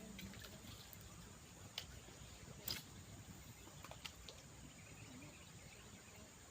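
Faint outdoor ambience: a steady high hiss with a few sharp clicks, the loudest near the middle.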